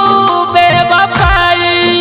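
Instrumental passage of a Bhojpuri sad song: a melody of held notes stepping in pitch, with a deep bass drum hit a little past a second in.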